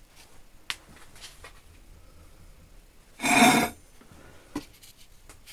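Heavy steel block being shifted on a workshop trolley: one short scrape, about half a second long, a little past halfway. A few light handling clicks come before and after it.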